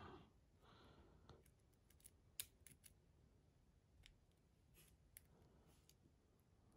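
Faint, scattered small clicks of a handleless lock pick working inside a lock.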